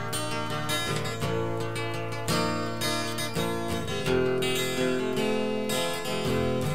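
Instrumental solo in a song, with no singing.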